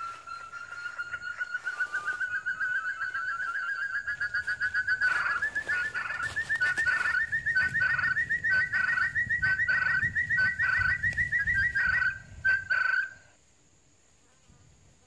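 Buttonquail call: a long trill of rapid notes that slowly rises in pitch and grows louder a few seconds in, then cuts off abruptly about thirteen seconds in.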